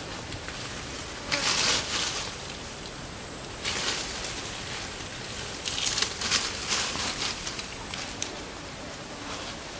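Dry leaves and brush rustling in a few short bursts, about a second and a half in, around four seconds and again around six to seven seconds, over a steady forest hiss.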